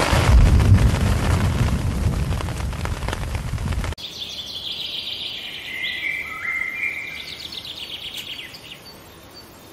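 Heavy rain with a rolling rumble of thunder, cut off abruptly about four seconds in. Then a bird sings a series of high whistled notes that step up and down, fading near the end.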